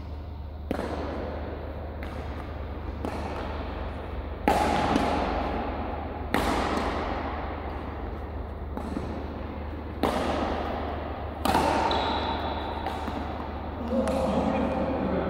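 Badminton rally: seven sharp pops of rackets striking a shuttlecock, one every one to two seconds, each echoing in a large hall over a low steady hum. Voices come in near the end.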